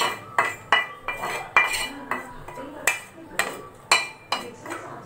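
A spoon clinking and scraping against a pan as fried besan paste is knocked out of it, about nine sharp ringing clinks at uneven intervals.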